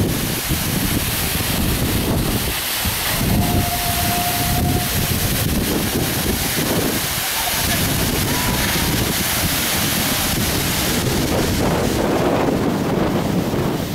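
Waterfall plunging into a pool, a loud steady rush, mixed with wind buffeting the microphone.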